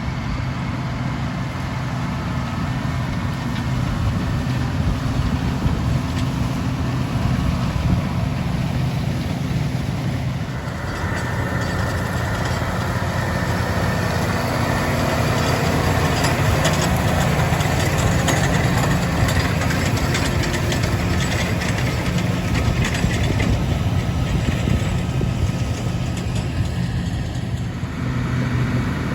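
Diesel engines of harvest machinery running steadily at work in a barley field. The sound grows fuller and busier about a third of the way in and dips briefly near the end.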